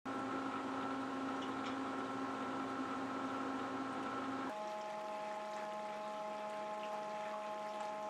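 Small water pump running in a sink of water: a steady motor hum over churning water. The hum changes pitch about four and a half seconds in.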